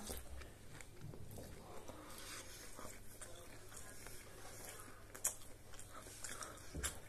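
Faint chewing and mouth sounds of someone eating a fried cheese finger, with a couple of brief louder clicks in the last two seconds.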